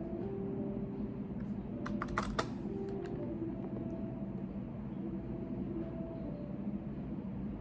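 Computer keyboard typing: a short flurry of keystrokes about two seconds in, over a steady low background hum.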